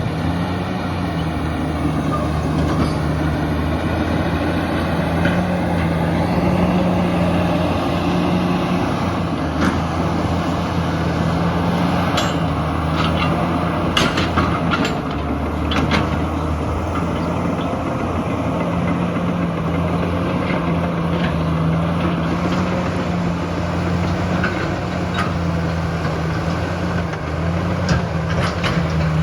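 Komatsu D68ESS crawler bulldozer's diesel engine running steadily under load, with sharp knocks scattered through, most of them between about 10 and 16 seconds in.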